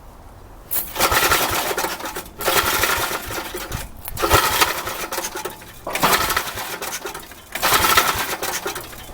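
Briggs & Stratton engine of an old Troy-Bilt Horse tiller running rough. It comes up in about five loud, rattly bursts roughly every second and a half and drops back between them. The engine is still popping and backfiring after the carburetor work.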